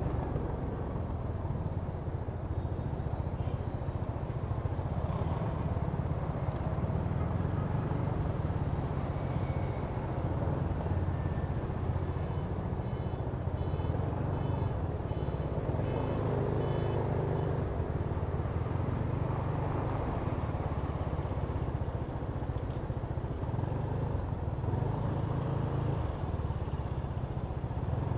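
Kymco Downtown 350i scooter's single-cylinder engine running steadily while riding, under road and traffic noise, with no big revving. A run of faint, short, evenly spaced high beeps comes through in the middle.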